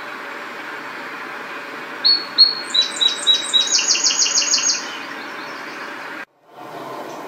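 Song sparrow singing one song: a few separate opening notes, then a fast, bright trill of about ten notes, over a steady background noise.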